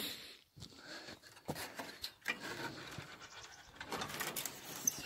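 A farm animal calling, amid scattered knocks and rustling close to the microphone.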